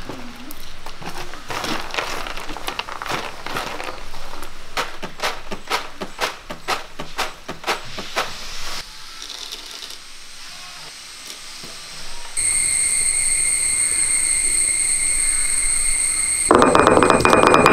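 Peanuts rubbed and tossed on a woven bamboo winnowing tray: a rattling rustle of nuts and dry skins in quick strokes for the first several seconds. Later a steady high whine comes in, and near the end a louder rough noise starts.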